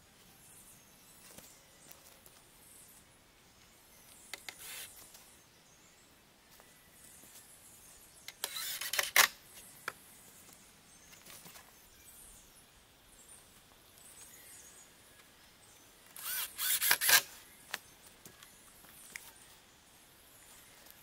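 Woodworking noise: two short, loud bursts of rattling, clicking work sounds, each about a second long, about 8 and 16 seconds in, over a quiet outdoor background.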